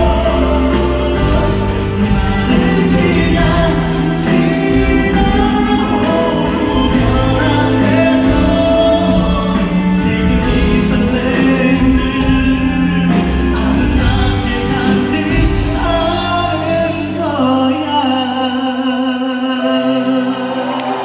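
Live pop band with singing, heard in a large hall. The heavy bass drops out about 17 seconds in, leaving a lighter accompaniment.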